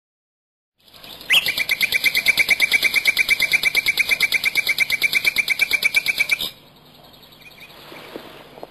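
A rapid, even trill of high chirps, about ten a second, from a bird call; it starts abruptly and cuts off after about five seconds, leaving faint background noise with a few small clicks.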